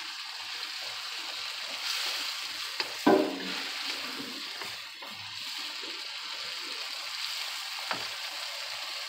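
Celery and other vegetables sizzling in a skillet while being stirred with a wooden spatula: a steady hiss, with a few light clicks. About three seconds in there is a brief voice-like sound, the loudest moment.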